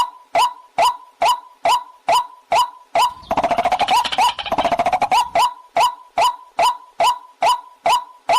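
Waterhen calling: a sharp, clipped note repeated evenly about twice a second, with a burst of fast chattering over it for about two seconds in the middle.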